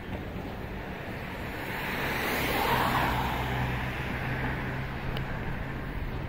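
A vehicle passing on the street, its tyre and road noise swelling to a peak about halfway through and then fading. From about the middle, a steady low hum of an engine running is heard under it.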